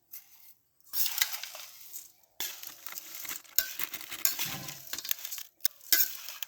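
Puffed rice being stirred and tossed with spices and mustard oil in a bowl: crisp rustling with many small clinks against the bowl, starting about a second in and pausing briefly twice.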